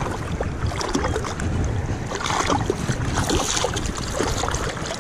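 A hooked rainbow trout splashing at the surface of a fast-flowing river as it is landed by hand, over the steady rush of the current. The splashes come irregularly and are loudest in the second half.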